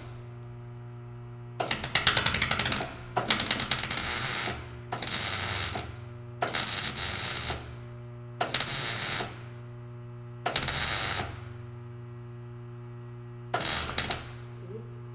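MIG welder stitch-welding a butt joint in thin car-body steel, with a brass punch held behind the seam as a backing: seven short bursts of crackling arc, each about a second long. A steady low hum sits beneath them in the pauses.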